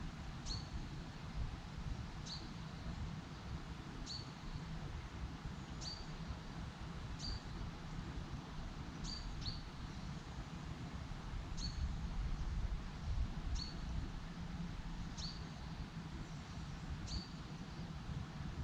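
A small bird repeating a single short, high call note, one every second and a half to two seconds, over a steady low rumble.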